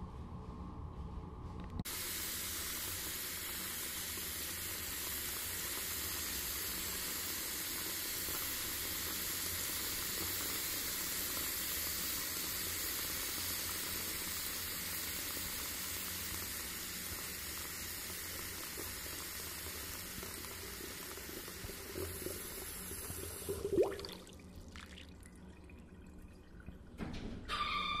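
A steady rushing hiss that starts abruptly about two seconds in and drops away near the end after a brief sharp peak, followed shortly by a short brighter burst.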